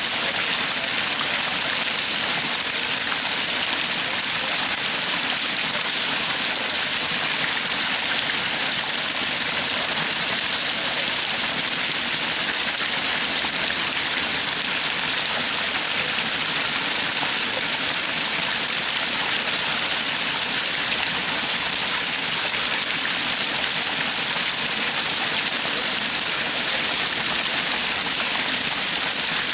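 Garden waterfall splashing over rocks into a koi pond: a steady, hissing rush of falling water.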